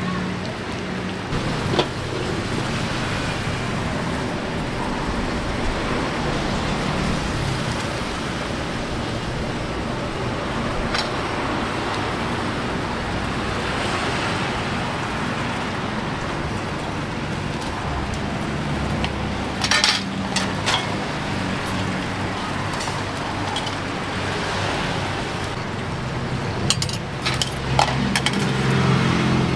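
Steady street noise with idling and passing vehicle engines, broken by a few sharp clinks about twenty seconds in and again near the end.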